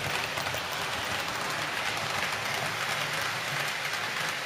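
Model trains running on the layout's track close by: a steady whir and rolling rattle of the locomotive's electric motor and the wheels on the rails. The locomotives have no sound units, so this is only the mechanical running noise.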